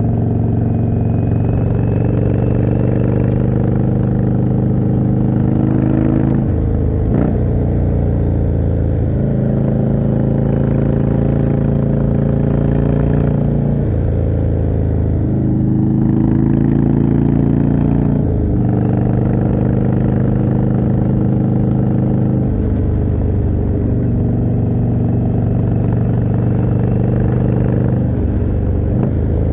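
Indian Chieftain's 1811 cc V-twin through a Jekill & Hyde exhaust, heard from the rider's seat while riding. The engine note climbs over a few seconds and then drops back sharply, about five times.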